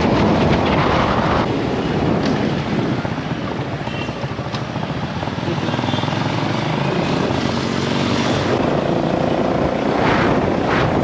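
Motorcycle engine running while riding, under a loud steady rush of wind on the microphone.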